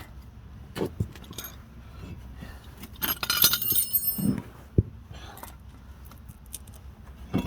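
Metal parts clinking and jangling, with a few sharp clicks, a ringing metallic jangle about three seconds in, and a single sharp knock near the five-second mark.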